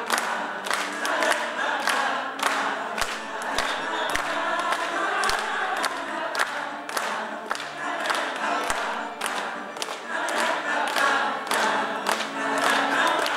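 Women's folk choir singing together with accordion accompaniment, with a sharp tap keeping the beat about twice a second.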